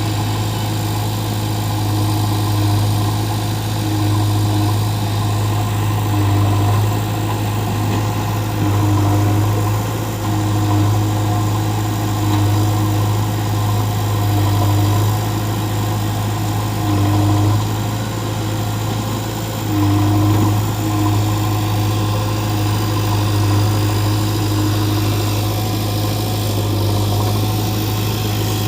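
Heavy diesel engine running steadily near idle, its revs and loudness swelling briefly every second or two as the machine works.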